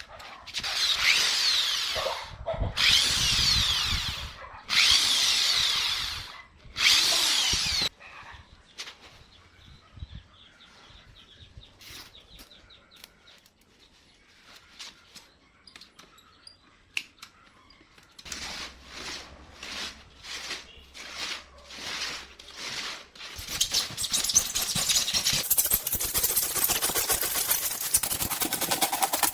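Power drill run in four short bursts of one to two seconds each, its pitch sweeping as it speeds and slows. Faint clicks follow, then a run of rhythmic strokes about two a second, and a continuous loud tool noise near the end.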